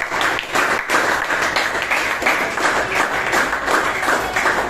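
A classroom of students clapping together in a dense, steady round of applause.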